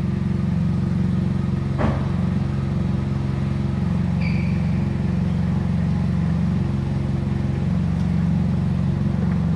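Kia Forte Koup 2.0's four-cylinder engine idling steadily through an aftermarket exhaust, a low, even exhaust note with no revving.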